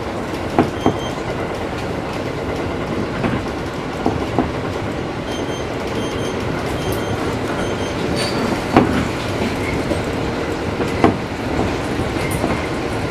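Passenger train running at speed, heard from the driver's cab: a steady running rumble, with the wheels clicking over rail joints in quick pairs several times.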